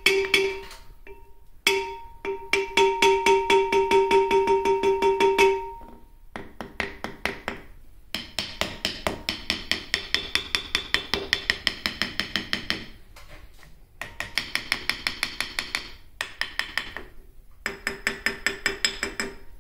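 Rapid tapping of a screwdriver against a welded steel CNC riser, about five or six taps a second in several runs with short pauses, as a sound test of how well its grout fill damps ringing. For the first six seconds or so a steady ringing tone hangs under the taps. The later runs are sharper and brighter, with little ring.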